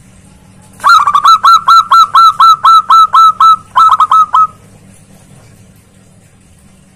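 Zebra dove (perkutut) calling loudly: a rapid run of short notes, each dropping in pitch, about five a second for some three and a half seconds, with a short break near the end.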